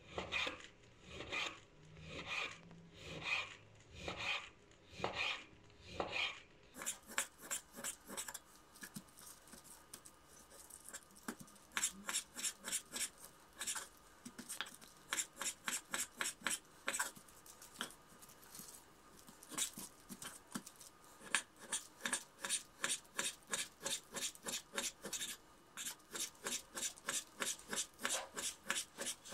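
Chef's knife slicing raw beef into thin strips on a wooden cutting board; each stroke is a short scrape ending in a tap on the board. The strokes come about one a second at first, then after about seven seconds in a quicker, even run of about three a second.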